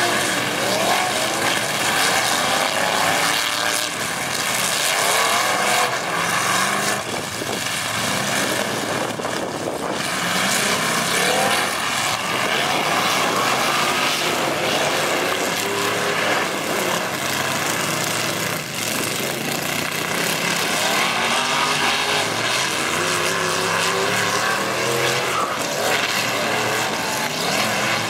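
Several demolition derby trucks' engines revving hard and unevenly, their pitch repeatedly rising and falling as they ram and push one another in a dirt arena.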